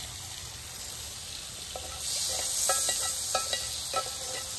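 Dove breasts frying in butter in a cast-iron skillet: a steady sizzle that grows louder about two seconds in, with a run of short clicks through the second half.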